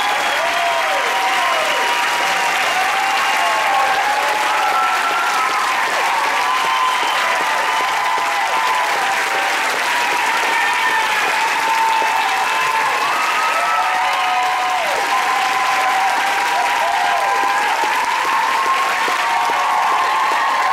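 A large theatre audience applauding steadily and loudly, with cheering voices rising and falling over the clapping.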